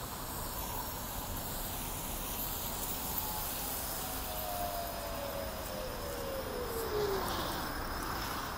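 City street traffic ambience: a steady wash of passing cars, with one vehicle's whine falling in pitch as it goes by, about halfway through.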